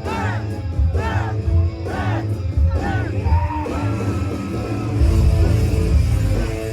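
Loud club music from a DJ set, with a heavy bass line and a high swooping sound that repeats about once a second. The bass grows heavier about five seconds in.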